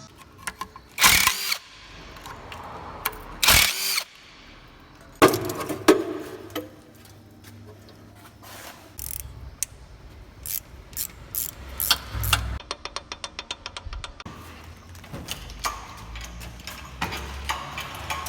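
Chevrolet Corsa engine making a mechanical noise: a few loud short bursts in the first six seconds, then scattered clicks and a run of quick, even ticks, about ten a second, some twelve seconds in. The engine has no oil pressure.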